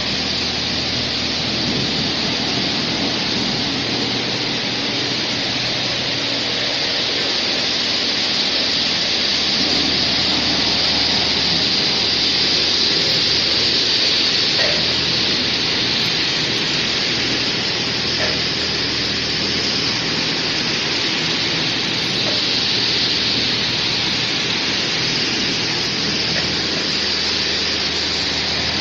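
High-pressure water jets of a touchless automatic car wash spraying, a steady loud hiss with a faint low hum beneath.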